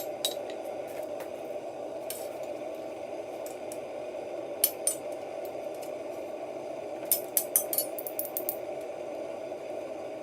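Scattered light metallic clinks and taps, with a quick cluster of them near the end, over a steady hum: hand tools and a hammer striking and touching the steel of a hinge at the anvil.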